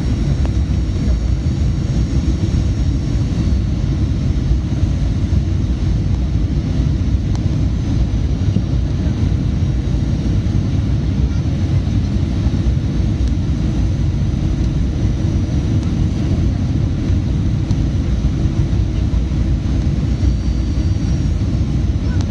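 Strong wind buffeting the microphone in a steady low rumble, with an airplane's engine noise and a faint high whine underneath.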